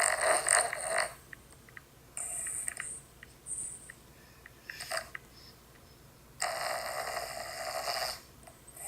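A sleeping dog snoring. There is a long snore at the start and another about six and a half seconds in, with shorter, quieter snores between.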